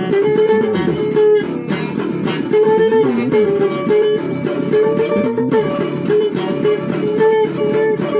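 Stratocaster-style electric guitar playing an instrumental blues passage: repeated held notes, with several notes bent up and back down.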